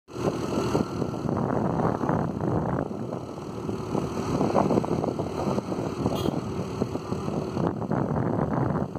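Motor scooter riding along, its small engine running steadily, heard from the pillion seat with wind buffeting the microphone.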